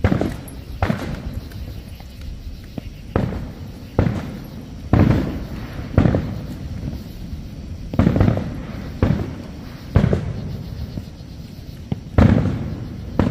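Fireworks display: aerial shells bursting in a run of sharp booms, about a dozen in thirteen seconds at uneven spacing, each trailing off in a rolling echo.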